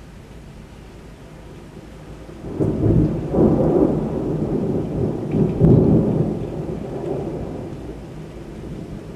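A peal of thunder over steady rain: the rumble builds about two and a half seconds in, swells twice, loudest a little past the middle, then dies away near the end.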